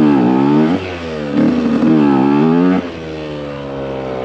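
Supermoto motorcycle engine revving in two swells, its pitch dipping and rising, then settling to steadier, lower revs about three seconds in.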